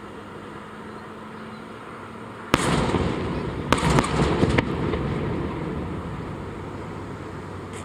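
Aerial firework shells bursting: a sudden loud boom about two and a half seconds in, then a quick string of sharp cracks a second later, the rumble echoing and fading away.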